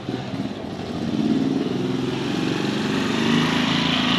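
Small motorcycle engine running as it passes close by, growing louder about a second in.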